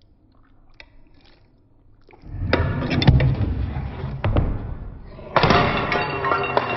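Several knocks and thuds, then a sudden crash about five seconds in as a baking dish of food falls and smashes on a tile floor.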